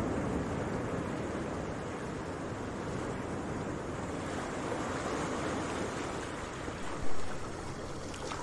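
Sea waves washing in steadily, with wind on the microphone; a short, louder surge about seven seconds in.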